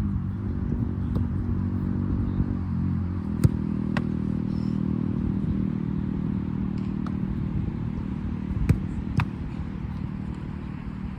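A motor vehicle engine running steadily, its note shifting about three seconds in, with four sharp ball impacts, the two loudest close together near the end.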